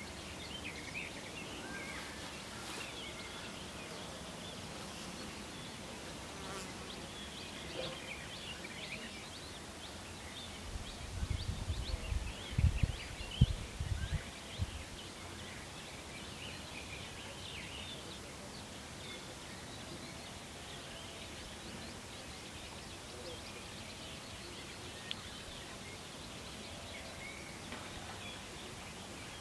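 Outdoor riverside ambience: a steady faint hiss with short, high chirps scattered throughout. About eleven seconds in, an uneven low rumble close to the microphone lasts some four seconds and is the loudest sound.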